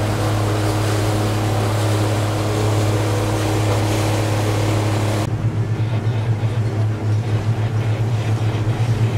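Boat under way: a steady low motor hum with the rush of water and wind. About five seconds in the hiss drops away suddenly and the hum turns to a fast pulsing.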